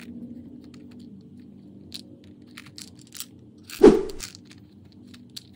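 A hard plastic candy-filled toy striking a stone mortar: a few faint light ticks, then one sharp clack about four seconds in that dies away quickly.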